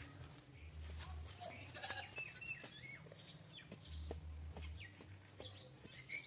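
Faint animal calls, short and rising and falling in pitch, over a low steady hum, with a few light taps.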